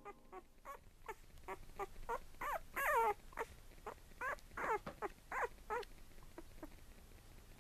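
Twelve-day-old Cavapoo puppy crying: a quick run of short, high-pitched cries, each bending in pitch, loudest about three seconds in and tailing off near the end.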